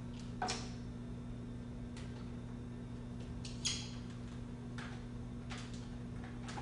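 Steady low hum in a small room, with a few short clicks and crinkles of plastic items being handled and set down, the loudest about half a second in and again just before the middle.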